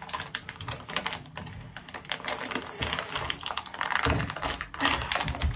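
Crinkling and crackling of a plastic bag of baking soda being gripped, twisted and pulled at the top by hand in an attempt to tear it open, with a few dull handling bumps near the end. The bag does not give.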